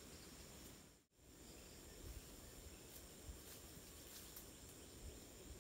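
Quiet forest ambience: faint, steady high-pitched insect drone over a soft hiss. The sound briefly cuts out completely about a second in.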